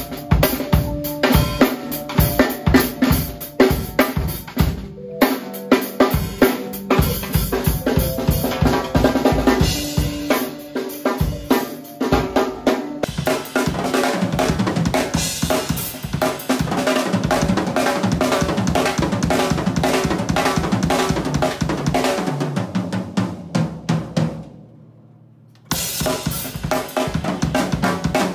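Acoustic drum kit played in fast, dense patterns: kick drum, snare, toms and cymbals struck in quick succession, with a brief break about twenty-five seconds in before the playing resumes.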